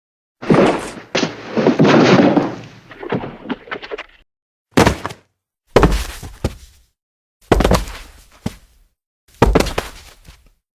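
Body-fall sound effects: one longer fall with a clattering tail that lasts a few seconds, then four separate heavy thuds, each dying away, with dead silence between them.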